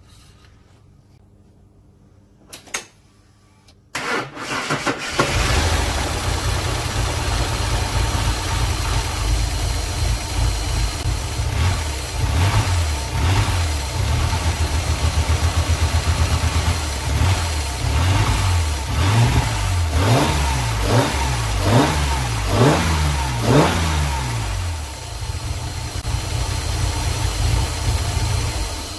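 Ford EL Falcon's inline-six engine starting about four seconds in and then idling roughly, its revs rising and falling several times about two-thirds of the way through. It runs a bit rough because the distributor timing, reset after a timing chain replacement, still needs tweaking.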